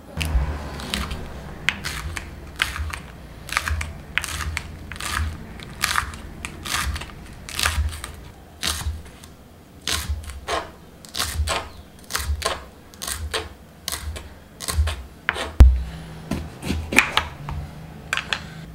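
Kitchen knife chopping green onion on a wooden cutting board: steady strokes about two a second, each a sharp knock of the blade on the board. Near the end the knife cuts into a green bell pepper.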